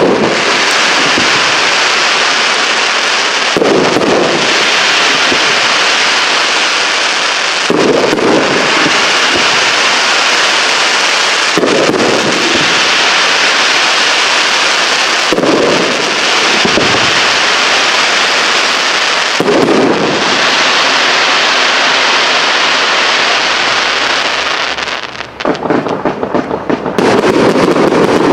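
Fireworks display: shells bursting about every four seconds over a continuous dense crackle. Near the end the crackle breaks off and gives way to rapid popping.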